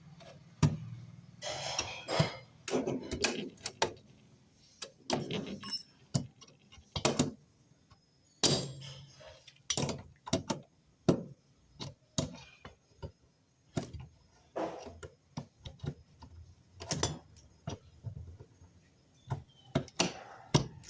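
Irregular clicks, knocks and metal clinks of hand tools and small parts being handled while the wiring and electrical parts are pulled off a refrigerator compressor.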